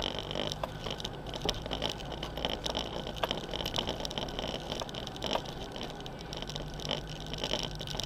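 Off-road vehicle driving slowly over a gravel track: the engine runs low and steady under scattered knocks and rattles from stones and the bodywork.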